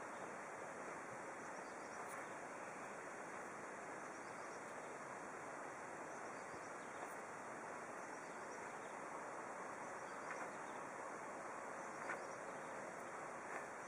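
Steady outdoor background ambience: an even hiss with a few faint ticks.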